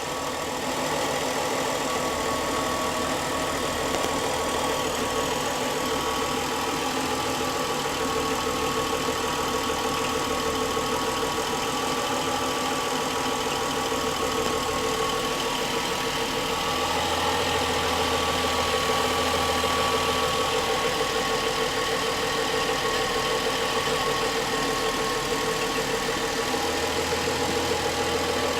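BMW N55 turbocharged straight-six idling steadily, with a knocking from the engine. The owner says the knock comes on 4-5 minutes after a cold start at idle, and fitting new-type VANOS units did not cure it.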